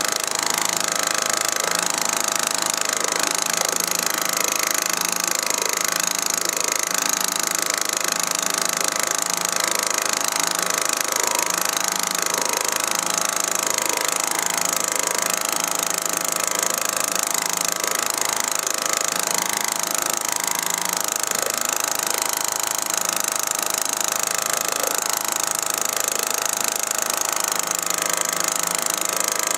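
Outboard motor pushing a canoe, running steadily at an even speed, with water rushing past the hull.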